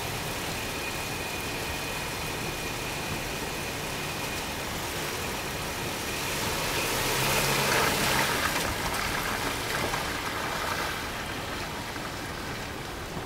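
Four-door Jeep Wrangler's engine running at low throttle as it creeps along a seesaw ramp, over a steady background hiss. The engine note swells briefly about seven to eight seconds in.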